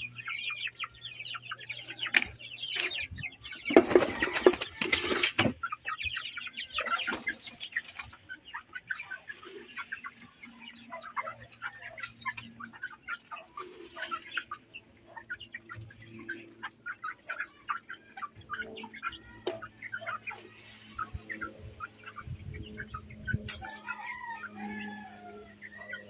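A flock of free-range hens clucking and calling all at once in short, overlapping notes while they scratch and peck. A loud burst of rustling noise stands out about four seconds in, and a few longer, gliding calls come near the end.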